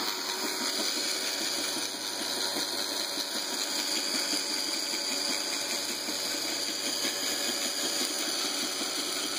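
Two small DC gear motors in clear plastic gearboxes running forward on Bluetooth command through an L298N driver, giving a steady, even whir.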